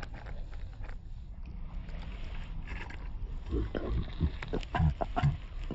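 A man's voice in short, low bursts, several in quick succession in the second half, over a steady low rumble of wind on the microphone.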